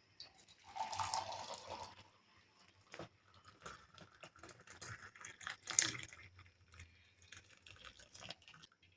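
Hot milky herbal decoction poured through a strainer into a cup: a short run of pouring and splashing liquid about a second in, then scattered small clinks and scrapes of the strainer and vessels.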